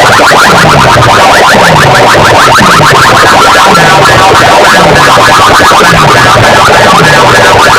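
Electronic DJ music blasting from a sound-box rig, played at full, clipping loudness. A falling bass sweep repeats about once a second under a fast, dense clatter of higher beats.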